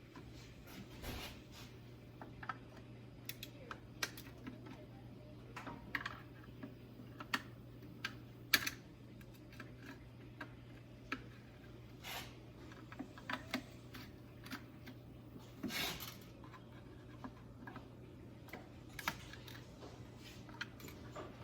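Irregular light clicks and metallic clinks of hand tools and small metal parts being handled while an engine is dismantled, over a low steady hum.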